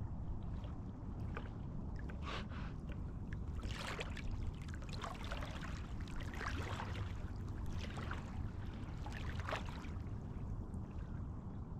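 Water splashing and sloshing in short irregular bursts over a steady low rumble.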